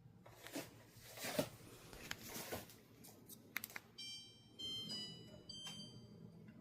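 An air conditioner's electronic power-on chime: a short melody of stepped beeps about four seconds in, after some handling rustle and a few clicks, with a low steady hum starting underneath as the unit begins running.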